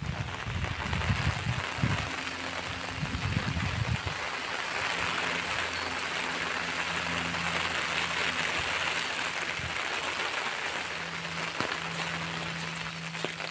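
Steady rain falling, a continuous even hiss, with a faint low steady hum beneath it.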